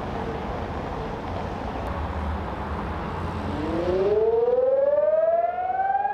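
Civil-defence warning siren starting up about three and a half seconds in, its tone rising in pitch and settling into a steady tone near the end. Before it there is only a low background rumble.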